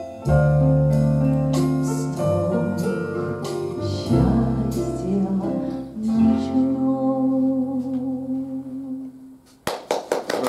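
The closing bars of a song with sustained instrumental chords and low bass notes, dying away. Audience applause breaks out near the end.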